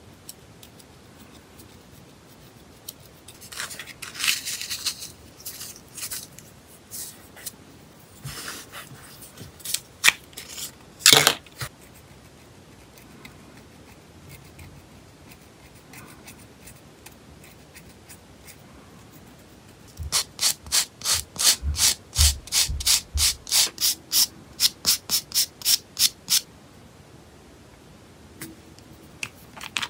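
Scraping and rubbing on fingernails as softened gel polish is worked off with an orange wood stick: a few slow, separate scrapes with a sharper one about eleven seconds in, then a quick run of about two dozen short strokes, about four a second.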